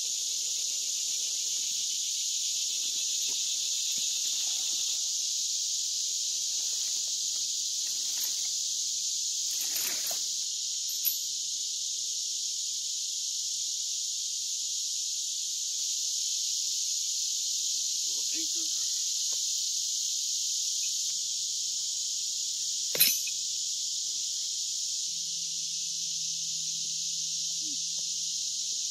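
A dense, steady high-pitched chorus of summer insects buzzing. A small click comes about 11 seconds in, and a sharp snap about 23 seconds in is the loudest moment.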